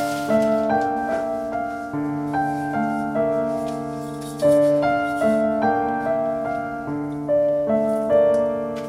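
Background piano music: a gentle, flowing piece with notes struck in a steady rhythm.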